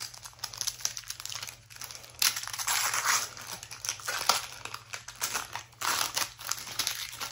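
Paper wrappers being torn and crumpled off decks of game cards: a dense, irregular crinkling and tearing, loudest in stretches near the middle.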